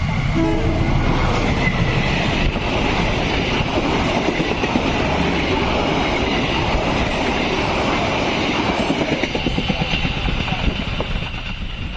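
A train passing close by, its wheels rumbling and clattering over the rail joints. The noise eases off near the end.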